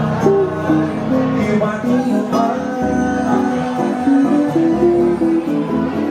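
Several acoustic guitars playing a bossa nova together, plucked chords under a melody of held notes, with a man's voice singing.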